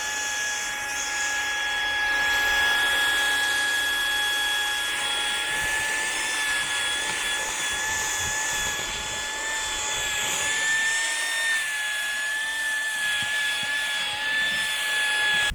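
SEHENTOOLS CV108 12 V handheld car vacuum cleaner running: a steady, high motor whine over the hiss of rushing air, wavering a little in pitch partway through, then switched off near the end.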